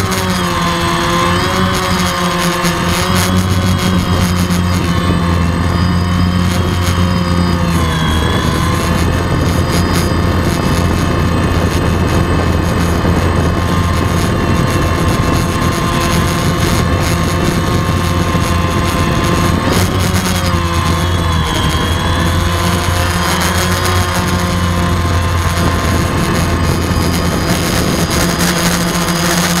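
DJI quadcopter's motors and propellers buzzing, picked up close by a keychain camera mounted on the drone as it lifts off and climbs; the pitch wavers down and back up a couple of times as the throttle changes.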